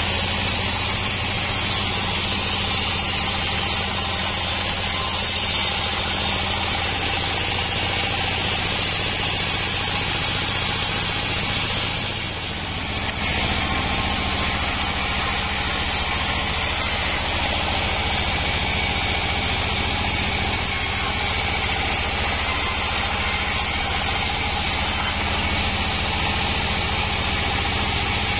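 Homemade band sawmill running steadily, its engine and band saw blade making a constant mechanical drone with a hiss above it; the sound dips briefly about twelve seconds in.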